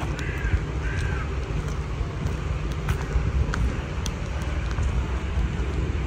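Outdoor park ambience: a steady low rumble of distant city traffic and wind, with two short rising-and-falling calls in the first second.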